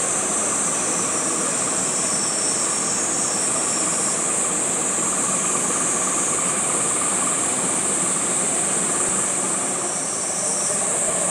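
Steady outdoor noise: a constant high-pitched hiss over an even rushing background, with no distinct events.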